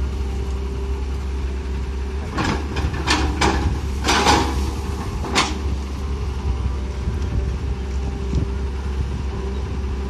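Tata Hitachi crawler excavator's diesel engine running steadily while the bucket digs into the soil beside a tree. A handful of short, sharp noises comes between about two and a half and five and a half seconds in.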